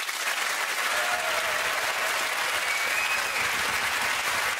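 Studio audience applauding, the clapping holding at a steady level.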